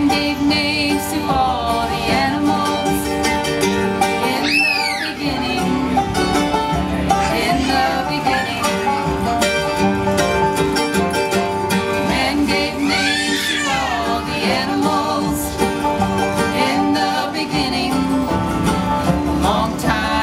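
Acoustic bluegrass band playing: five-string banjo, mandolin, two acoustic guitars and upright bass, at a steady level.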